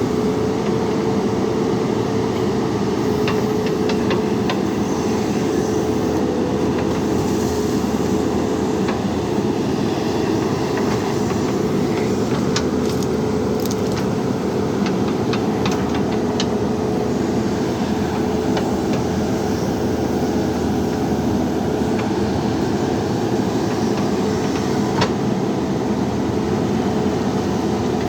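JCB backhoe loader's diesel engine running steadily under work. Occasional light clicks and knocks come through.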